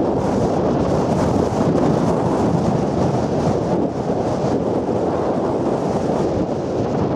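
Steady rumbling road and wind noise from a car driving along a street, with wind buffeting the microphone.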